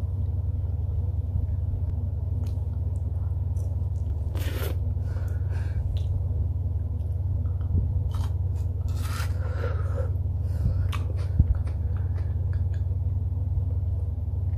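Mouth sounds of someone biting and sucking on a ball of frozen yogurt on a stick: scattered short scrapes, crunches and breaths, a few louder ones near the middle, over a steady low hum.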